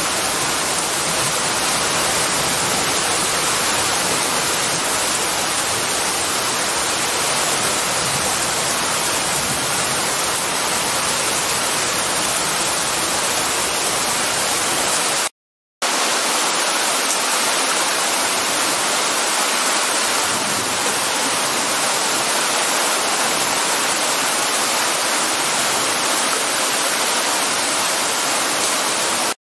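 Heavy rain pouring down in a storm: a loud, steady, dense hiss of falling water. It cuts out for about half a second midway.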